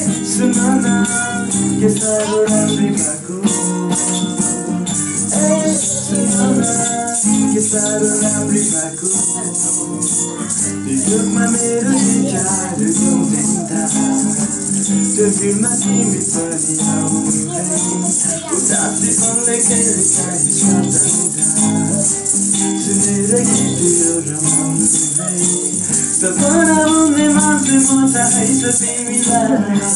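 Acoustic guitar strummed while a young man sings a song, with small bells shaken along in a steady rhythm.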